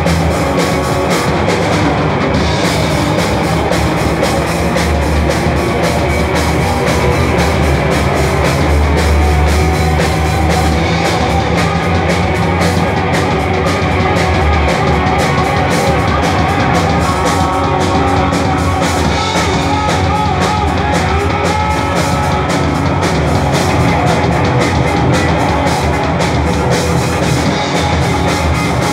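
Live rock band playing loud: electric guitars, bass and drum kit together, without a break.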